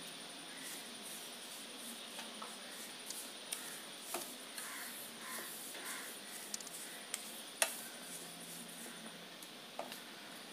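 Wooden spatula stirring dry semolina roasting in a steel pot: faint scraping and rustling, with occasional light knocks of the spatula against the pot, the sharpest about seven and a half seconds in.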